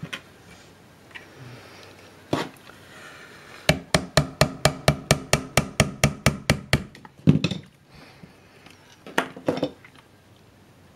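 Light hammer taps on a screwdriver wedged into the seam of a die-cast aluminium antenna housing to pry its cover off. There is a single knock, then a quick, even run of about twenty taps at around six a second, then a few louder knocks near the end.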